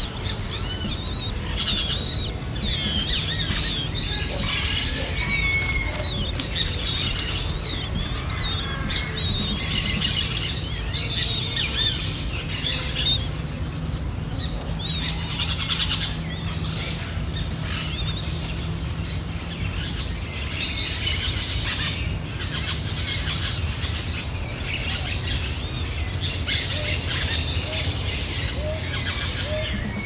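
Nestlings begging with rapid high chirps while adult birds feed them at the nest, busiest in the first dozen seconds and then coming in bursts. A steady high-pitched tone and a low hum run beneath.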